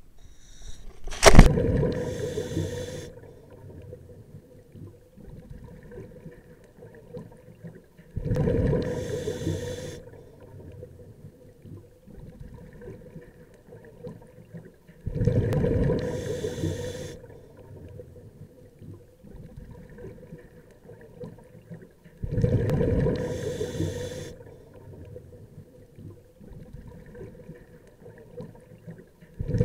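Scuba regulator exhaust underwater: a loud rush of exhaled bubbles about every seven seconds, each lasting two to three seconds, with quieter gurgling between breaths. A sharp, loud splash about a second in, as the diver drops into the water.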